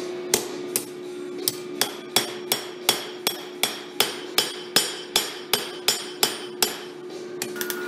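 Hand hammer striking red-hot spring steel on an anvil, drawing the round bar out flat: a steady rhythm of sharp blows, nearly three a second.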